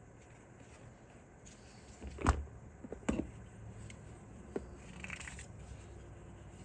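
A few handling knocks and light clatter of small objects being picked up and set down, the loudest about two seconds in, with a brief scuff a little later.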